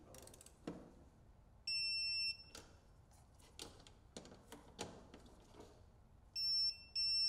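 Electronic torque wrench tightening a battery cable nut to 44 in-lb: a few light ratchet clicks, and a steady high-pitched beep of under a second about two seconds in, beeping again near the end. The beep signals that the set torque has been reached.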